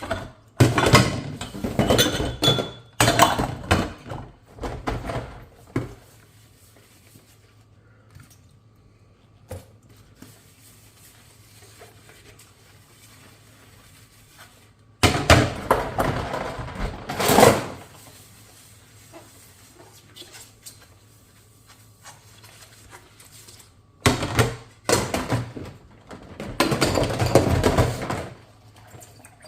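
Dishes being washed by hand: three spells of splashing, scrubbing and clinking dishes, a few seconds each, separated by quieter pauses with a faint low steady hum.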